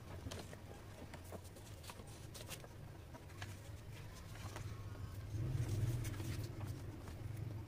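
Light handling noises from paper craft work: scattered small taps and rustles of paper and tools on a tabletop, over a low steady hum that grows louder for about a second a bit past halfway.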